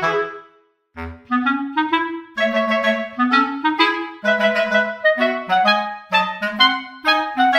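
Background music: a clarinet tune of quick, short notes. It breaks off briefly about half a second in and starts again about a second in.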